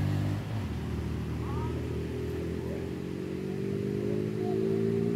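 A small boat's motor running steadily. From about the middle on, its pitch slowly rises as it picks up speed.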